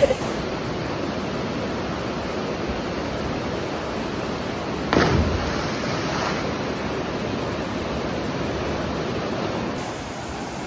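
Jungle stream water rushing and splashing over rocks, a steady wash of noise. A short louder burst comes about five seconds in.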